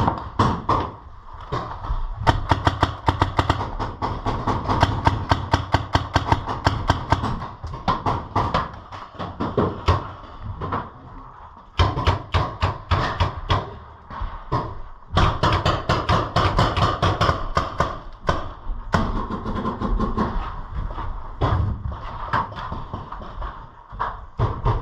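Paintball markers firing rapid shots in long bursts, with a pause in the middle and scattered single shots around them.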